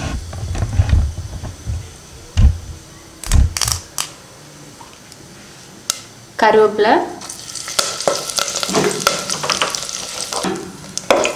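Curry leaves dropped into hot sesame oil with fennel seeds and dried red chillies. The oil sizzles loudly from about seven seconds in. Before that there are a few low knocks and a fainter fry of the spices.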